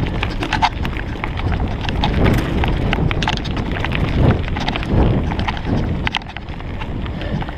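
Mountain bike clattering and rattling as it rides downhill over a rough dirt trail, with tyres rumbling on the ground and a steady run of irregular sharp knocks.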